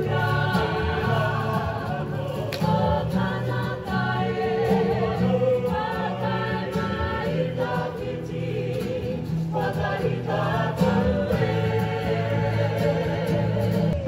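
Māori waiata: a mixed group of men and women singing together in harmony, with guitar accompaniment.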